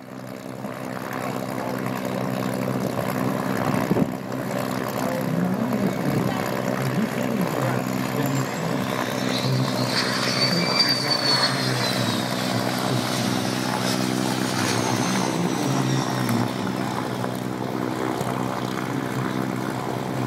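Light propeller aircraft's piston engine running steadily close by, a constant drone. About halfway through, a jet's high whine rises and falls as it passes.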